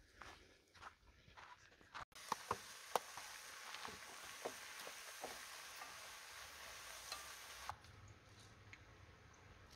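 Food sizzling in a pot on a camping stove, with a spoon clicking against the pot as it is stirred; the sizzle drops away near the end.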